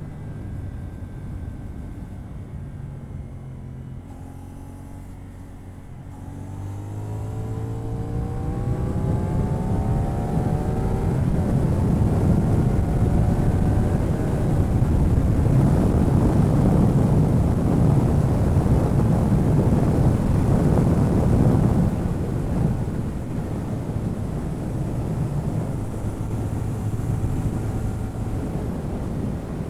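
CF Moto 450NK parallel-twin motorcycle on its stock exhaust, heard onboard. The engine runs steadily, then accelerates hard from about six seconds in, its pitch rising. At speed a loud wind rush on the microphone largely drowns out the exhaust, and the engine settles to steadier running near the end.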